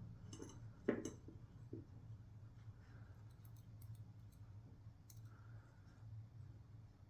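Small clicks of tiny lock pins and springs being handled and set into a lock cylinder, with one sharper click about a second in and fainter ticks after it, over a low steady hum.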